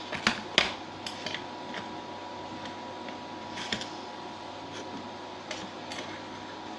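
Scattered sharp clicks and light taps from small objects being handled, the two loudest within the first second, over a steady background hum.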